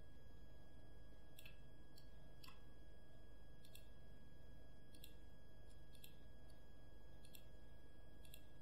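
Faint clicks of a computer mouse and keyboard, about eight at irregular intervals, over a steady low hum and a thin steady high tone.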